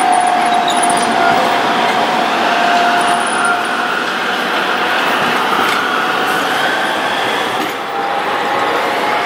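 Articulated tram rolling past on a curve of track, a steady running rumble of wheels on rail. A thin steady squeal from the wheels on the curve dies away after about three seconds. A short dip near the end, then another tram's running sound.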